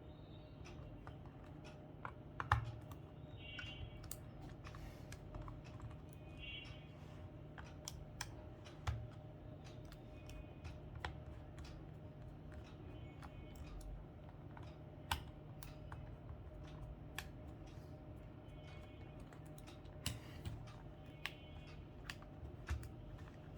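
Irregular small clicks and taps, scattered and uneven, from a Casio fx-991MS scientific calculator's plastic case and parts being handled and taken apart.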